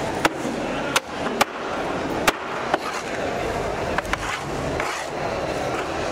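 Large heavy knife chopping fish into pieces on a cutting board: sharp chops at irregular intervals, about seven in all, mostly in the first half, over a steady background din.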